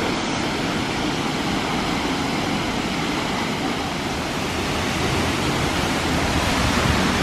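Looking Glass Falls pouring down, a steady rushing of falling water that swells slightly in the last couple of seconds.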